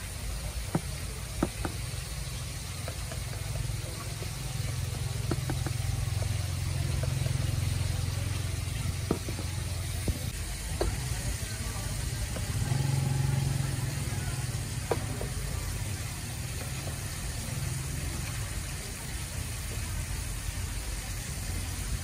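Metal tongs clicking and scraping against a plastic tub as chicken pieces are tossed in breading flour, over a steady hiss of chicken frying in oil in a wok. Under it runs the low rumble of an idling engine, swelling twice.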